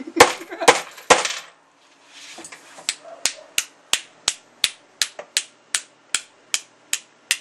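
Hammer tapping a nail into a microphone: three loud knocks in the first second or so, then light, sharp, evenly spaced taps, about three a second.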